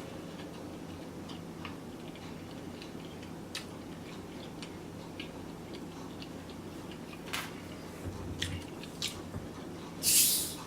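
Close-miked chewing with scattered wet mouth clicks, from someone eating. A few sharper clicks come in the second half, and a short, loud hiss comes near the end.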